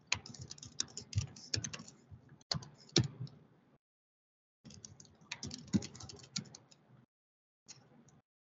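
Typing on a computer keyboard: irregular runs of key clicks, breaking off a little under four seconds in and again about seven seconds in before a short last run.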